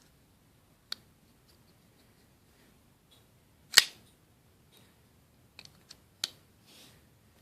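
A Kershaw Thermite folding knife being handled: a few sharp clicks, one much louder snap a little past halfway, and a brief soft rustle near the end.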